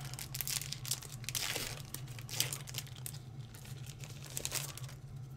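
Pokémon trading cards and their foil booster-pack wrappers being handled: crinkling and rustling in uneven bursts, with a few light clicks.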